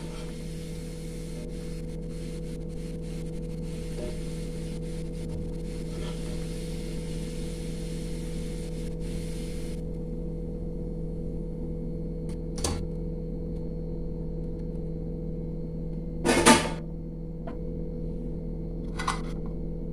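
Hot oil sizzling and crackling in a kadai as a breadcrumb-coated fried ice cream ball deep-fries, over a steady low hum; the sizzle stops abruptly about halfway through as the ball is lifted out of the oil. Three short sharp knocks follow, the loudest about two-thirds through.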